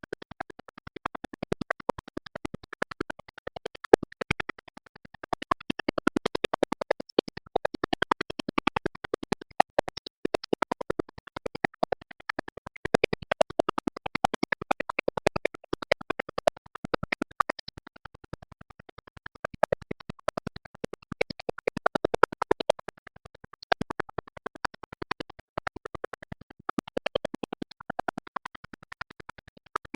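Music with a dense, rapid clicking and scratching texture.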